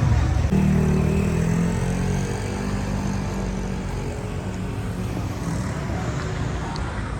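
Street traffic: a motor vehicle's engine running close by, a low steady hum that sets in about half a second in and slowly fades, over the general noise of a busy city street.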